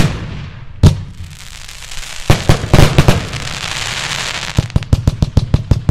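Aerial fireworks bursting: sharp bangs at the start and about a second in, then a cluster of reports, under a long dense crackling hiss as golden glitter stars fall. Near the end comes a quick run of bangs, about five a second.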